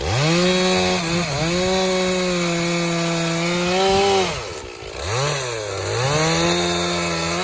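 Stihl MS460 chainsaw at full throttle cutting through elm logs. It eases off about four and a half seconds in, then revs back up and keeps cutting.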